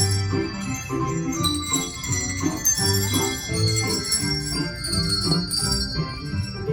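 Hand bell choir playing a Christmas tune, many bell tones ringing and overlapping, over a steady rhythmic lower part.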